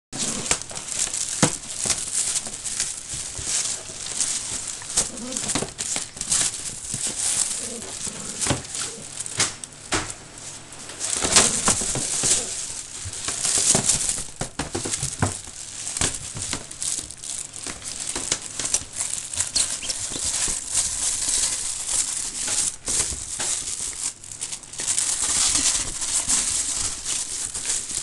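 Fabric cat play tunnel rustling and crinkling in irregular bursts as a miniature dachshund bites and tugs at it and it is shaken about.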